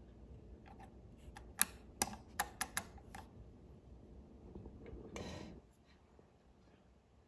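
Metal bobbin case being pushed into the bobbin holder under a 1950s Necchi BF Mira sewing machine: a quick cluster of small, sharp metallic clicks about two seconds in as it is seated. A brief rustle follows a couple of seconds later.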